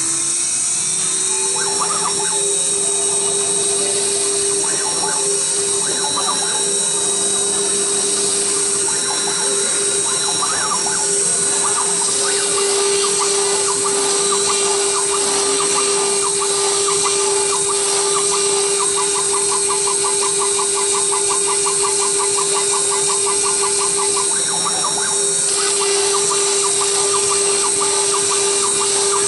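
Redsail CNC router spindle running with a steady whine as its bit engraves a circuit board, settling to speed within the first second. A fast ticking from the cut comes and goes in the second half.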